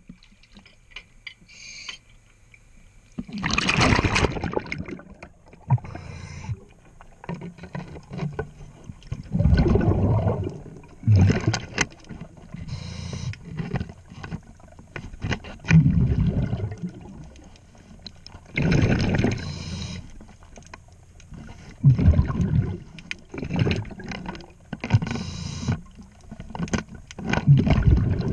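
A scuba diver's exhaled bubbles rumbling past an underwater camera in bursts every few seconds, with small clicks and knocks from work on the propeller shaft between breaths.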